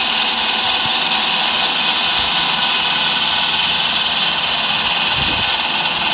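Water-cooled diamond wall saw cutting into a steel-reinforced concrete foundation: a loud, steady grinding hiss that holds even throughout.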